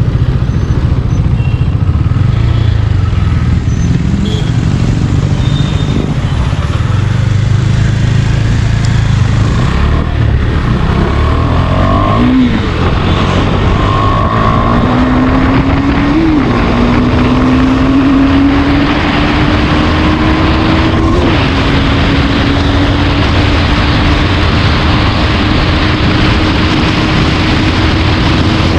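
KTM Duke 390's single-cylinder engine accelerating hard through the gears. A low rumble at first, then the engine note climbs and drops back at three upshifts before pulling steadily upward toward top speed. Wind noise grows louder as the speed rises.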